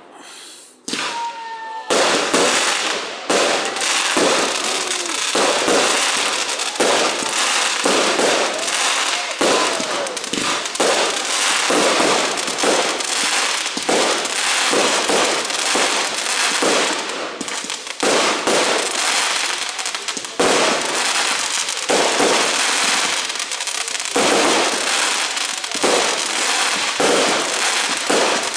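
Fireworks display: aerial shells bursting in rapid, almost unbroken succession with crackling, starting after a short lull about two seconds in.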